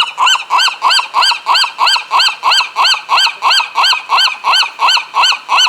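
A seagull calling in a long, fast run of loud, repeated notes, about three a second and evenly spaced, each note rising and falling in pitch.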